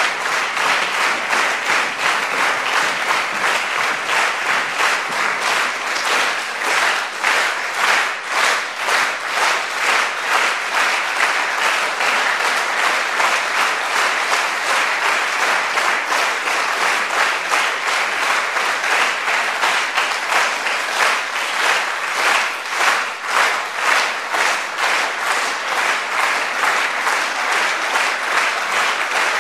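Theatre audience applauding a curtain call, the clapping at times falling into a steady rhythm in unison.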